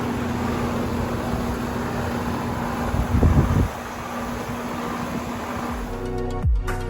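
Outdoor air-conditioner condensing unit running: a steady fan rush over a constant compressor hum, with a brief low rumble about three seconds in. Electronic music starts near the end.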